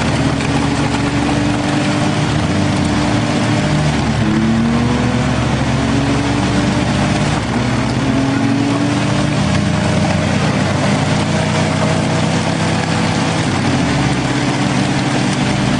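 Off-road 4x4 engine running steadily under load in deep mud, its pitch rising and falling as it is revved, mostly between about four and nine seconds in.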